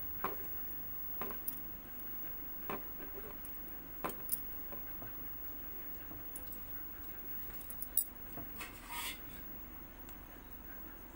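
Scattered small metallic clicks and clinks as hands work a metal crochet hook through yarn, about eight sharp ticks spread unevenly, with a short rustle near the end.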